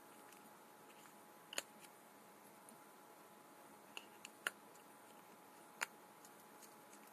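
Small sharp plastic clicks from a smartphone being handled with its back cover off: one about a second and a half in, three close together around four seconds, and one near six seconds, over faint steady hiss.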